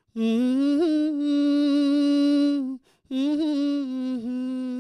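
A man's voice, unaccompanied, holds two long wordless notes at the close of a Nepali song, each with a slight waver. There is a short breath between them about three seconds in, and the second note slowly fades.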